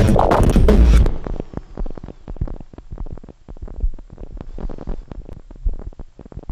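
Music with a scratching beat for about the first second, then a cut to rapid, irregular crackling pops over a low rumble.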